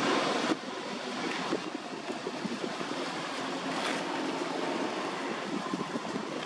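Steady outdoor background noise, with a few faint clicks and rustles. It drops in level about half a second in.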